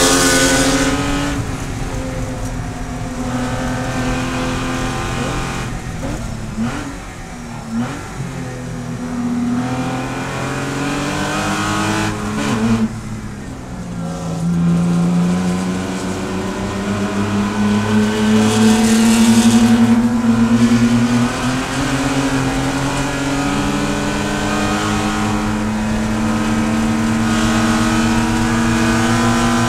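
A Porsche Boxster race car's flat-six engine, heard from inside the cockpit, lifting and braking into a corner with short throttle blips on the downshifts, then pulling hard with its pitch rising steadily up the following straight.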